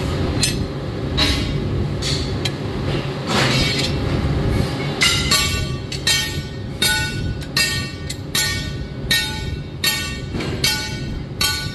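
Hammer blows on steel in a leaf-spring workshop: a few scattered clinks at first, then from about five seconds in a steady beat of ringing metal-on-metal strikes, roughly one every three-quarters of a second, over a constant low machine rumble.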